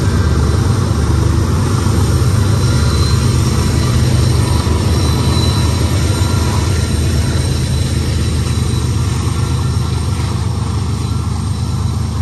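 Diesel-electric freight locomotives running under load with a steady low engine drone, easing a little in the second half, as a heavy BNSF autorack train restarts from a stall and crawls slowly upgrade.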